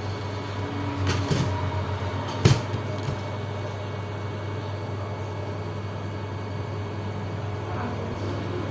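A steady low hum with a few clicks about a second in and a single sharp knock about two and a half seconds in, then a lighter click.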